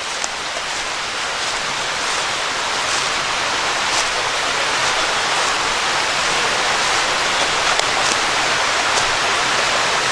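Creek water spilling over a multi-level waterfall: a steady hiss of rushing, falling water that grows gradually louder.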